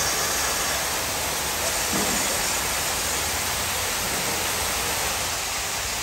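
Water from a rock-shaped fountain splashing down in a steady rush, an even hiss with no let-up.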